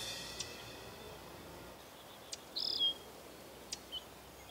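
Faint outdoor ambience slowly fading down: a low hiss with a few sharp ticks and a short, high bird call about two and a half seconds in.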